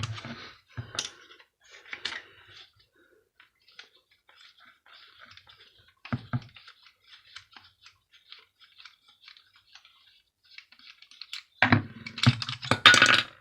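Small clicks, taps and scrapes of hand tools and metal and plastic parts as a small electric bar heater is being taken apart and its screws undone, with a knock about six seconds in and louder clattering near the end.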